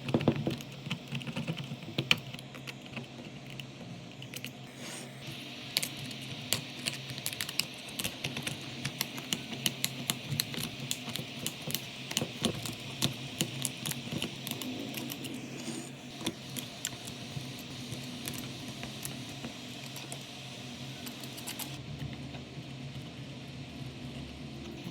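Quick, irregular small clicks and taps of hand tools working on a phone, densest in the middle, over a steady low hum.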